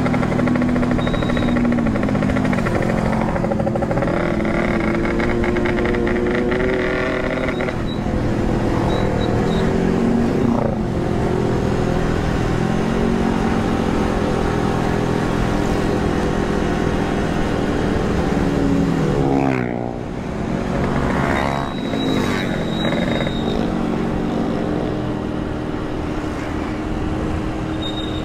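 Yamaha RX-King single-cylinder two-stroke motorcycle engine ridden hard at speed. The engine note climbs and drops in steps with gear changes. It eases off and falls in pitch about two-thirds of the way through, then pulls up again.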